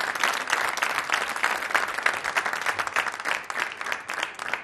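Studio audience applauding: dense clapping that thins out and grows quieter toward the end.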